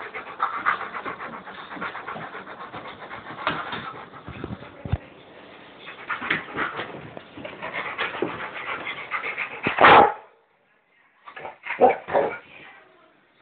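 Dog barking and whimpering close up, with a loud burst about ten seconds in, a brief gap, then a few more short barks.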